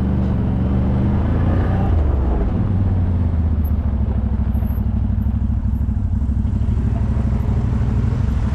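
ATV engine running steadily, its pitch dropping slightly about two seconds in.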